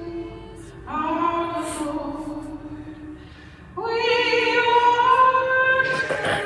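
A woman singing solo into a microphone. She sings two long, held phrases, the second starting near the four-second mark and louder than the first.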